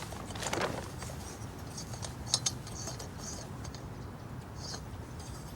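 Small scrapes and a couple of light clicks from handling a folding canister backpacking stove as it is unfolded and screwed onto its gas canister, over a low steady background rumble.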